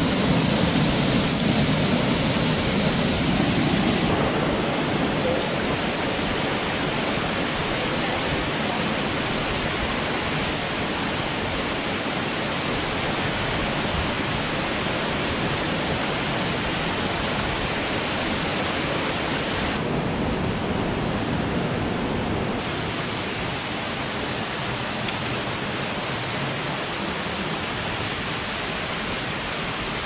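Steady rushing of water from a jungle river and waterfall, an even hiss with no other sound standing out; its brightness shifts abruptly about four seconds in and again for a few seconds later on.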